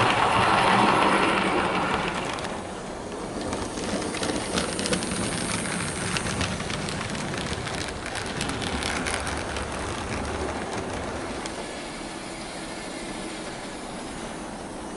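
Hornby OO gauge H Class model locomotive, on its newly fitted motor, running with its coaches on model track. It is loudest as the train passes close by and quieter from about two seconds in as it moves away, with the wheels clicking over the track.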